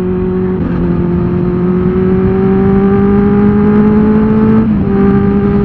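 Benelli TNT 600's 600 cc inline-four engine pulling under way, its pitch rising slowly as it accelerates. About four and a half seconds in, a brief break and a drop to a lower pitch mark an upshift, and it pulls on again.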